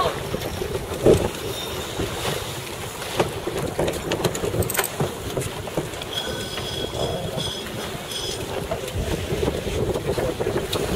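Sailing keelboat under way: wind buffeting the microphone over the rush of water along the hull, with a few sharp knocks, the loudest about a second in.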